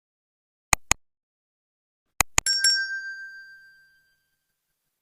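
Two pairs of sharp clicks, the second pair followed at once by a single bell-like ding that rings on one clear pitch and fades out over about a second and a half.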